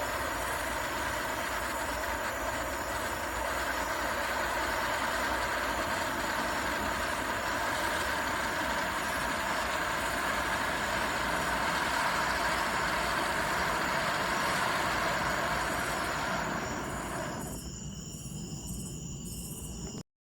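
Handheld firework pinwheel burning with a steady rushing hiss of sparks that stops abruptly near the end.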